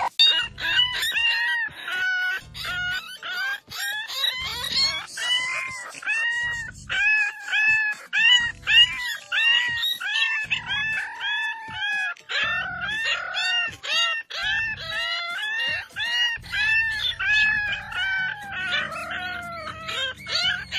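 French bulldog puppies howling in short, high, rising-and-falling cries, several a second and sometimes overlapping, over background music with a steady beat.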